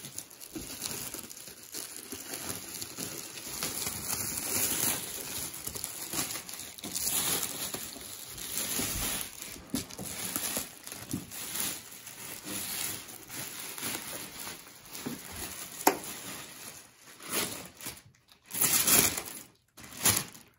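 Packaging crinkling and rustling as parts are handled and unwrapped from a shipping box, with irregular short scrapes and knocks and a few brief pauses near the end.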